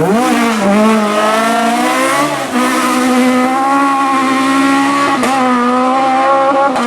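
Rally car engine under hard throttle: the revs drop sharply and climb again at the start, then hold a steady, slowly rising note, with a short dip in the revs about five seconds in.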